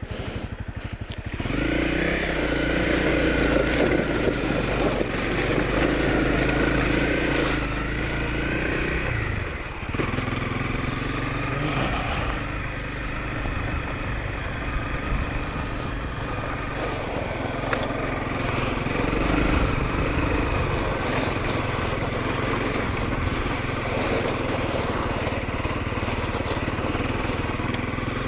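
Honda CRF250L's single-cylinder four-stroke engine running under way, picking up about a second and a half in as the bike pulls away, with its pitch shifting as the rider works the throttle. Loose gravel crunches and ticks under the tyres.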